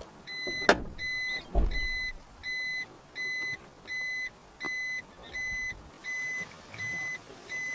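A vehicle's reversing alarm: a steady high electronic beep repeating about every 0.6 s. A sharp click sounds just under a second in.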